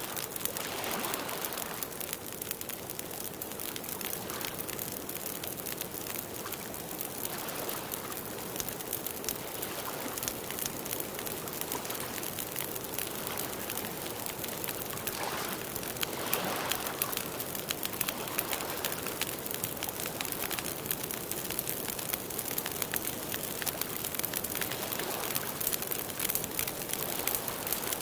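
Wood campfire crackling: a steady, dense patter of small pops and snaps.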